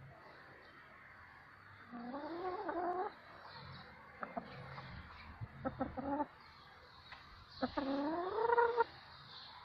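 Red laying hen giving two drawn-out calls that rise in pitch, each about a second long, one early and one near the end, with a few short clucks in between.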